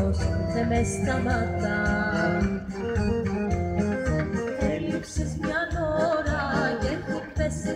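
Greek folk dance music for the hasaposerviko, a melody with a steady beat.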